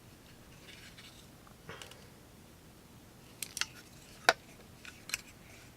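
A few light, sharp clicks and taps from a folding knife being handled, scattered through otherwise quiet room tone; the crispest click comes about four seconds in.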